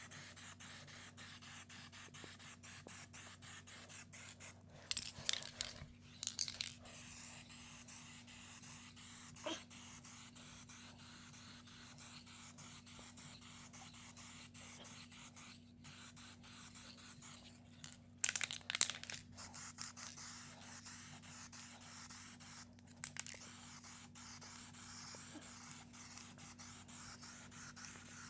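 Clear coat being sprayed onto a car door: a steady fine hiss with a low hum underneath, and louder bursts of spray about five and six seconds in and again around eighteen to nineteen seconds.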